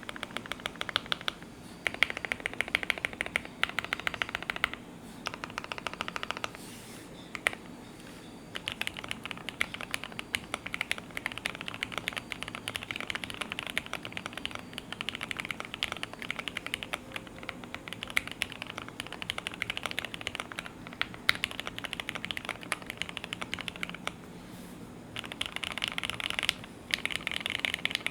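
Typing on a Monsgeek M1 aluminium mechanical keyboard with lubed and filmed Gateron Ink Black V2 linear switches, a PC plate, PCB foam, no case foam and Domikey Obsidian keycaps. The keys clack in fast runs, broken by short pauses.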